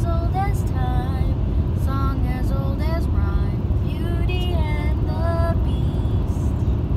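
Steady low road and engine rumble inside a moving car's cabin, with a high singing voice over it in short, wavering phrases.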